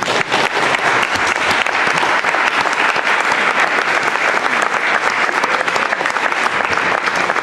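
Audience applauding, a dense steady clapping that swells in just before and holds level.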